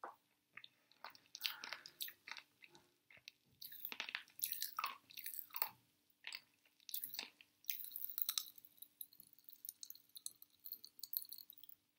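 Mouth chewing popping candy, with scattered irregular crackles and crunches at a low level.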